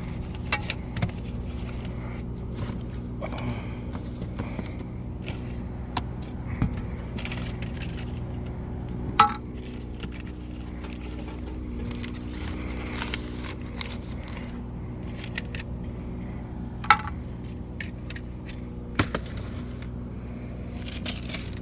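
Small items being handled and put back into a car's glovebox: scattered clicks, light rattles and scrapes, with a few sharper knocks, over a steady low hum.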